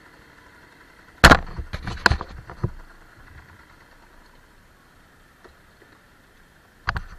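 A quick run of sharp knocks and clatter about a second in, lasting about a second and a half; another knock near the end.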